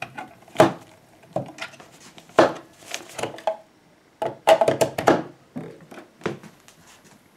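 Irregular hard plastic clicks and knocks of a Milwaukee M12 battery pack being handled in its charger, lifted up and pushed back into the slot, with a quick run of clacks about four to five seconds in.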